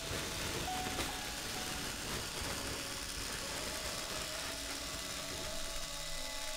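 Steady mechanical grinding noise, with a sharp click about a second in.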